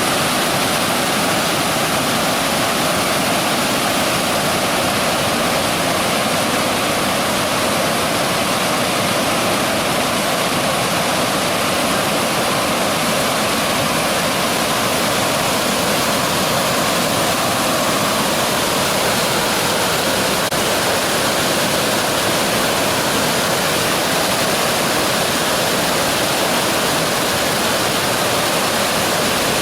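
Fast-flowing river floodwater rushing in a steady, loud, unbroken torrent.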